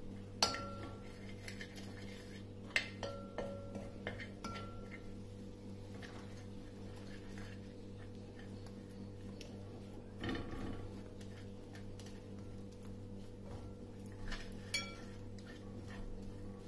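Metal spoon stirring gram-flour batter in a cut-glass bowl, clinking against the glass a handful of times with a short ring, over a steady low hum.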